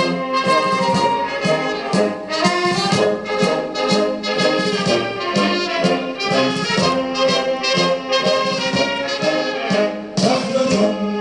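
Music led by brass instruments, with trumpets and trombones playing sustained, changing notes over an orchestral backing.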